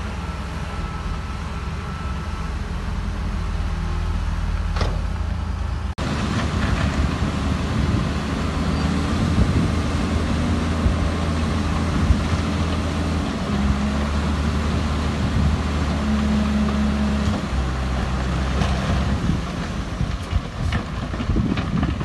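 Diesel engine of heavy construction machinery running with a low hum whose note shifts now and then, broken by an abrupt cut about six seconds in.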